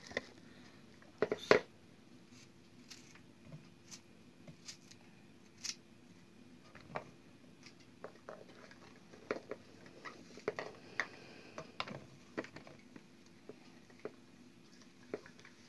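Irregular soft clicks, taps and rustles of hands packing green peppers and dropping peeled garlic cloves into a large ribbed plastic jar, with a louder double knock about a second and a half in. A faint steady hum sits underneath.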